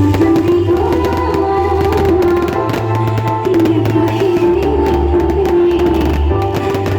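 Loud music playing, with hand-drum percussion over a heavy, shifting bass line and a sustained melody.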